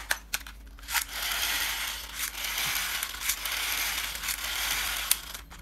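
Plastic toy police car being handled: a click, then a steady rough plastic rasping for about four seconds, ending with another click.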